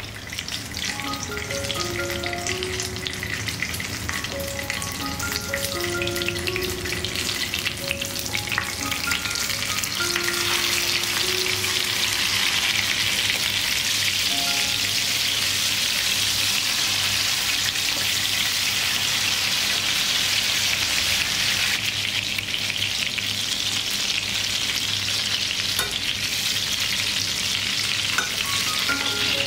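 Tuna-stuffed eggplant halves sizzling as they shallow-fry in hot oil in a nonstick pan. The sizzle grows louder about ten seconds in, then holds steady.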